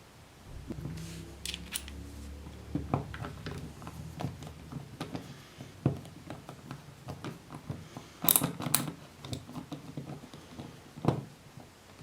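Scattered clicks and taps of a Phillips screwdriver and small metal parts as screws and washers are taken out of a motorcycle's contact point breaker plate, with a low hum in the first few seconds.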